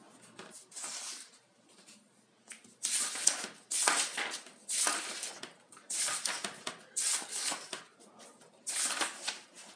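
Paper pages of a practice-test booklet being turned by hand, each turn a rustle and flap. After soft rustling at first, about six page turns come roughly one a second from about three seconds in.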